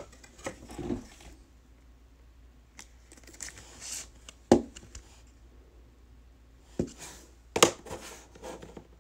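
Trading card handled and slid into a rigid plastic top loader, with plastic card holders tapped and set down on a table. There are a few sharp clicks and taps, the loudest about four and a half and seven and a half seconds in, and a short scraping slide around four seconds in.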